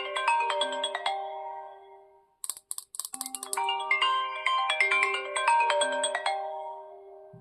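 Phone ringtone: a short melody of clear, bell-like notes over a held low note. The phrase plays and fades, a brief patch of high ticking follows about two and a half seconds in, then the melody repeats.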